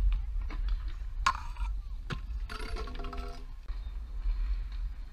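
Stunt scooter rolling over asphalt: a steady low rumble with a few sharp clacks.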